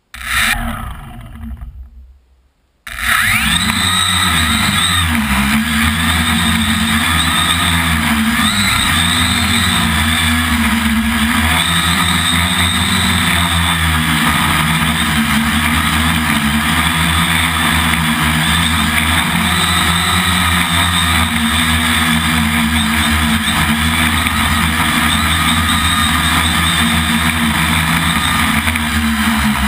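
Quadcopter motors and propellers heard through the onboard camera's microphone: a brief spin that winds down in the first two seconds, then about three seconds in the motors spin up and run continuously in flight, their whine wavering up and down in pitch as the throttle changes.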